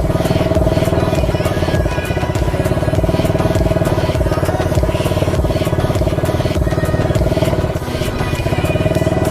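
A 125cc ATV engine running at a steady speed while riding, with frequent short knocks and rattles over the engine.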